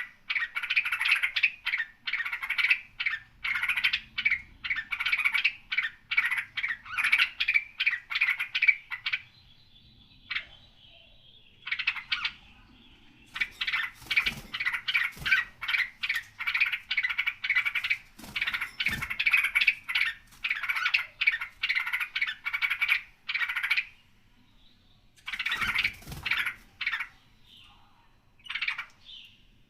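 Songbird chattering in long runs of rapid, repeated sharp notes, broken by short pauses and thinning out near the end.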